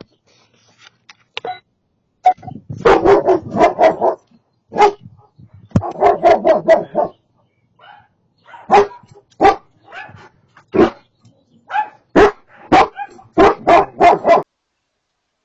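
A dog barking repeatedly. It starts with a fast run of barks, has a second run a little later, then gives single barks about a second apart and a final quick run near the end.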